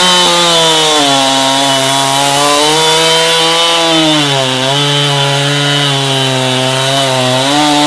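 Echo CS-7310P 73.5 cc two-stroke chainsaw running at full throttle through wood, its engine pitch sagging a few times as the bar takes load in the cut.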